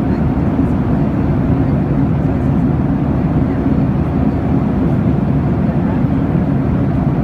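Airliner cabin noise in cruise flight: a steady, deep, even hum of engines and airflow heard from inside the cabin.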